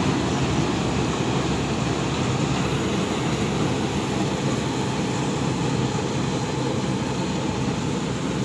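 Rice combine harvester running with a steady, unbroken drone.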